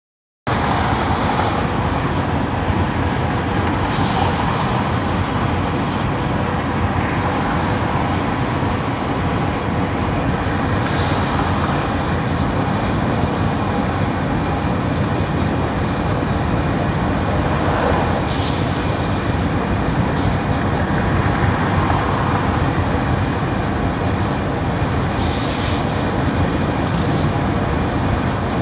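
Steady engine and road noise inside a Peterbilt semi-truck cab on the move, with a brief hissing rush about every seven seconds.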